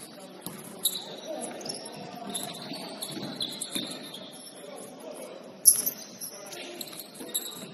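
Indoor basketball game: sneakers squeaking on the court floor in short high chirps over indistinct players' voices, with a loud sharp bang of the ball striking about six seconds in.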